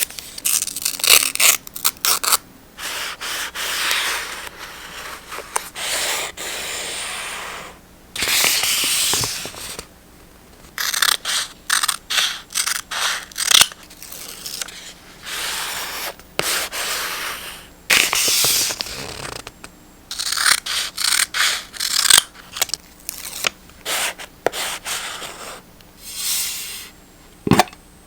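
Paper being rubbed and scraped against a journal page, in strokes of a second or more, between quick crackles and taps as the paper pieces and stickers are handled.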